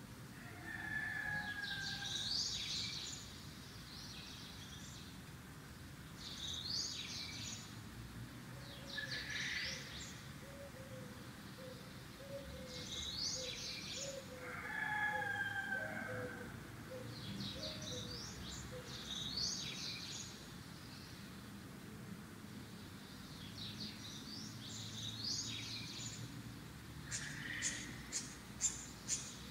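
A songbird singing in short twittering phrases every few seconds, with a few held whistled notes in between. Near the end comes a quick run of sharp clicks.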